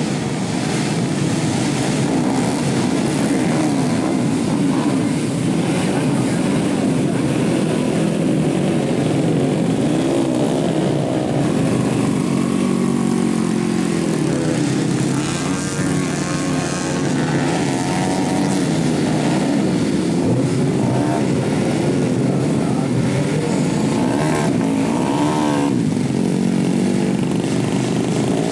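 Small dirt bike engines revving up and down as the bikes ride through mud, their pitch rising and falling with the throttle and at times overlapping.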